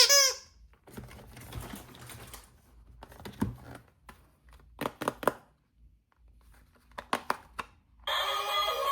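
Plastic toy packaging being handled: soft rustling and a series of sharp plastic clicks, in ones and pairs. It opens with a short bright electronic tone, and about eight seconds in a tinny song with synthetic singing starts playing.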